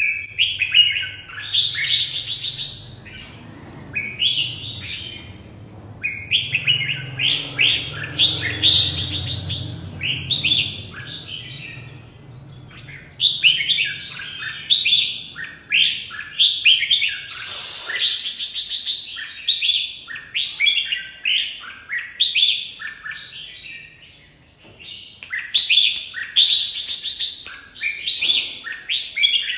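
Caged red-whiskered bulbul singing its competition song almost nonstop: a string of short, quick warbled phrases, with a few especially loud bursts spread through.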